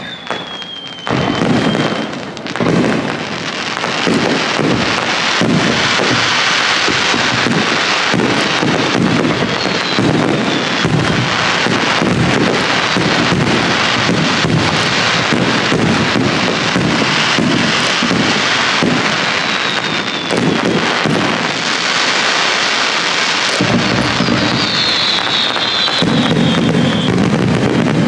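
Aerial fireworks barrage: rapid, overlapping shell bursts and crackle that thicken into a continuous loud din after the first few seconds, with falling whistles several times.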